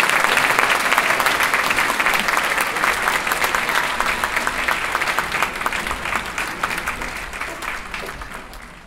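Audience applauding, a dense patter of clapping that fades steadily away toward the end.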